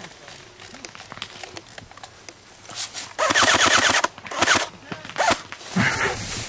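Airsoft gun firing a full-auto burst of about a second, the loudest sound, about three seconds in, among scattered single pops and BB hits; brief shouts follow.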